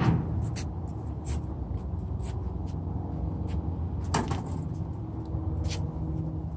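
Scattered clicks and knocks from hand work on a semi truck's windshield opening, with one louder knock about four seconds in, over a steady low hum.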